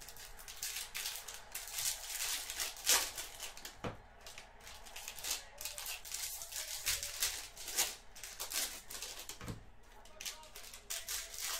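Baseball trading cards and their pack wrappers being handled: irregular rustling, crinkling and light clicks as cards are slid and flipped.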